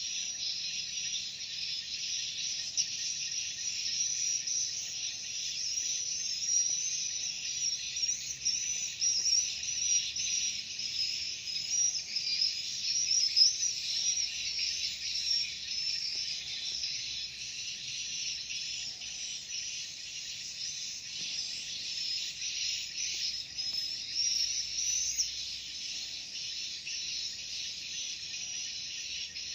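Swiftlets twittering: a dense, unbroken mass of high, insect-like chirps, a little louder around the middle.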